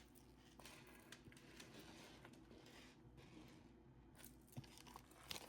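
Near silence, with faint rustling and a few light clicks from bead strands and their packaging being handled.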